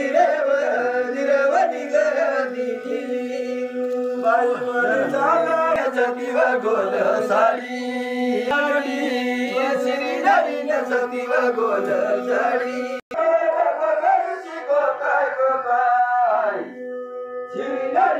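Devotional singing in a chanting style over a steady drone. The sound cuts out for an instant about 13 seconds in.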